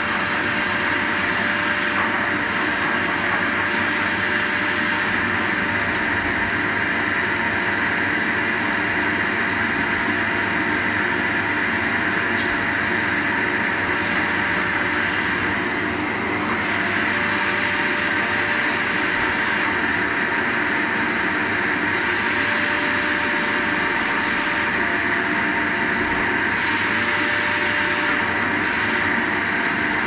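Canister vacuum cleaner running steadily, a constant rush of air with a faint motor whine, its hose being drawn over a dog's coat.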